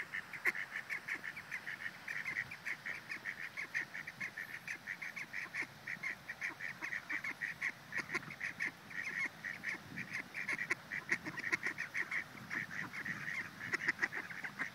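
A flock of waterfowl calling without a break, a dense run of short calls several times a second.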